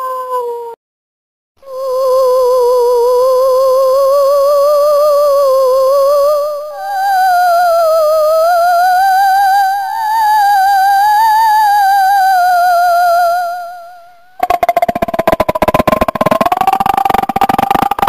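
Horror ringtone sounds. First the end of a falling howl, then an eerie wordless wail with strong vibrato that steps up in pitch about a third of the way through and fades out. A loud, harsh, creaking throat rattle starts near the end.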